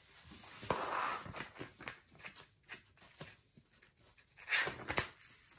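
Paper rustling and handling noise as the pages of a printed instruction booklet are turned, with small clicks and knocks. There is a louder bout of rustle about a second in and another near the end.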